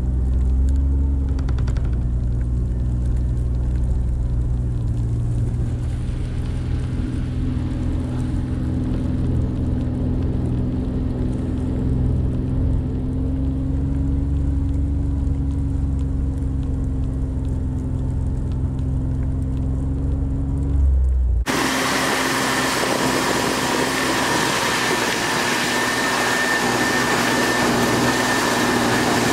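Kawasaki Mule Pro FXT side-by-side's three-cylinder engine running steadily while driving, its pitch rising a little now and then. About two-thirds through, the sound cuts abruptly to a steady rushing hiss with a thin high whine.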